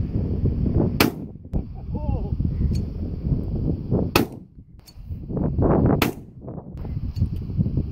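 Shotgun fired three times at thrown clay targets: single sharp shots about three seconds and then about two seconds apart.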